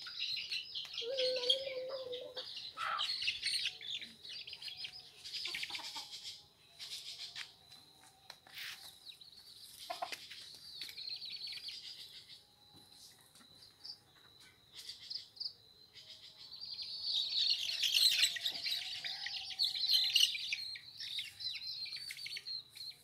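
Birds chirping and twittering in busy high-pitched spells, loudest near the start and again about three quarters of the way through, over a thin steady high-pitched whine.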